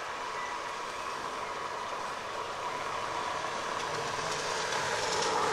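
Steady rushing hiss of heavy rain in a thunderstorm, growing gradually louder toward the end.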